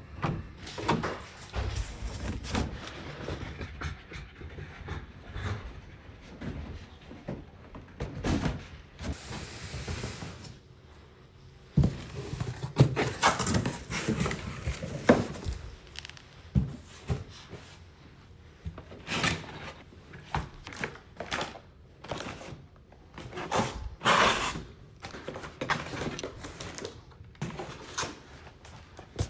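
Irregular knocks, clicks and rustles of objects being handled and set down, with a cluster of louder knocks around the middle and again a few seconds before the end.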